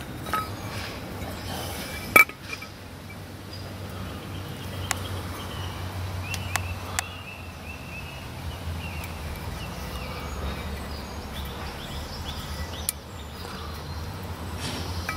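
Steady low outdoor hum with a few small clicks and taps as a metal oil pickup pipe and its new O-ring are handled; the loudest is a sharp click about two seconds in.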